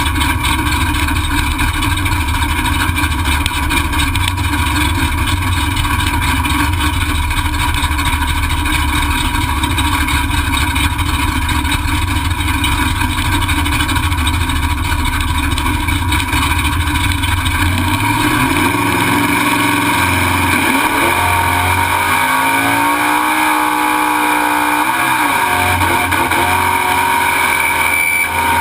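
383 stroker V8 drag-car engine heard from inside the stripped cabin, running with a steady low rumble. About two-thirds of the way through it starts revving, its pitch climbing, holding, dropping sharply and climbing again.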